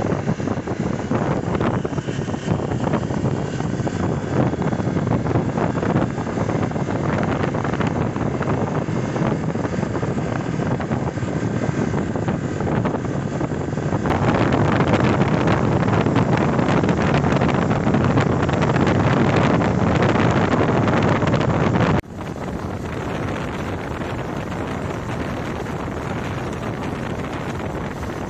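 Wind rushing and buffeting on the microphone of a Hero Xpulse 200 4V motorcycle riding along a highway, with the bike's single-cylinder engine running underneath. The rush grows louder about halfway through, then drops suddenly to a lower, steadier level near the end.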